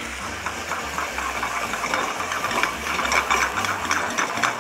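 Hogao and potatoes sizzling and crackling in a hot stainless frying pan over a gas flame, just after a splash of liquid has been added; the crackle grows denser and a little louder from about two seconds in as the pan is moved on the burner.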